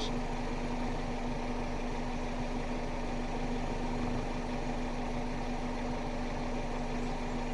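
Truck engine idling steadily, a constant low hum over an even running noise.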